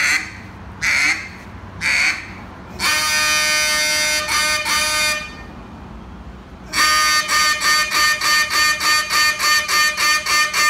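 Handmade Billy Starks duck call blown in a routine: three short blasts a second apart, then a long drawn-out call. After a short pause comes a steady run of quacks, about three a second.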